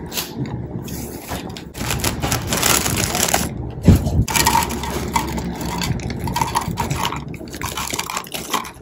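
Handling of plastic food-storage boxes and a plastic packet of raisins: a lid pressed and clicked onto a box, the packet crinkling as it is handled, with a sharp knock about four seconds in, then raisins pouring into a clear plastic box near the end.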